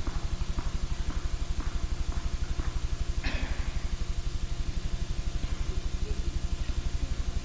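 A loud, low hum with a rapid, even pulse, with a few faint taps over it.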